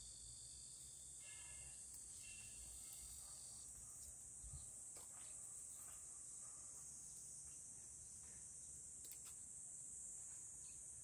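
Steady high-pitched chorus of insects, with faint scattered clicks and rustles from green onion stalks being trimmed by hand.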